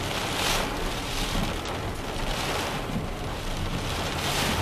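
Heavy rain on a car, with the windscreen wipers swishing across the glass about every two seconds: a downpour too heavy for the wipers to clear.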